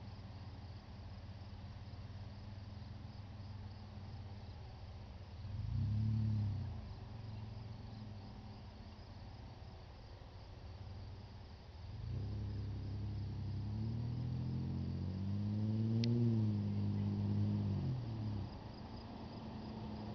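Dodge Dakota's V6 engine idling with a steady low hum, blipped once about six seconds in, then revved up and back down over several seconds from about twelve seconds in.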